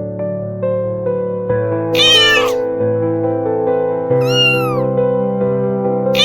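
A kitten meowing twice, about two seconds in and again just after four seconds, the second call higher and falling away, over background music with sustained keyboard-like notes; a third meow starts right at the end.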